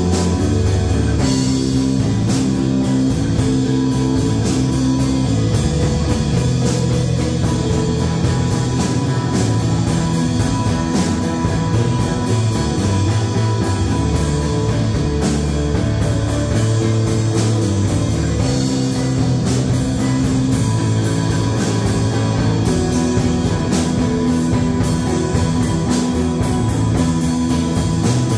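Live rock band playing: electric guitar through a small combo amp, acoustic guitars and a drum kit with regular drum and cymbal hits.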